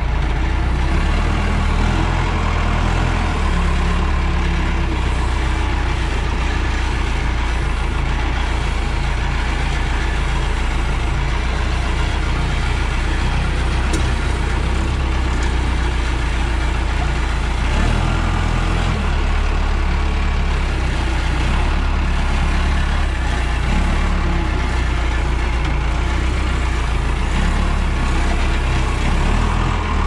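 Case 580 Super L backhoe's diesel engine running steadily with a low rumble, heard from the operator's seat, with a slight change in its note about two-thirds of the way through.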